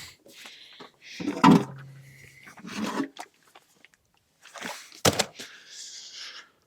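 Knocks and clunks of a lead-acid battery being handled in the backhoe's battery box. The sharpest knock comes about five seconds in.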